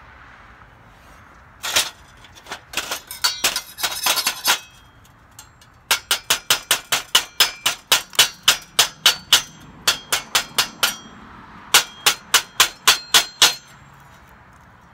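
Chipping hammer rapping on fresh stick welds on a steel saw blade to knock off the slag. First come scattered sharp, ringing metal taps, then a long run of quick, even strikes at about four a second, a short pause, and a second shorter run.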